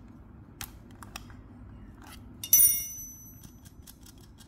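Steel open-end spanner clicking lightly on a small nut as the potentiometer nut on a circuit board is loosened. About two and a half seconds in comes a sharp metal clink that rings briefly as a metal piece is set down on the hard surface.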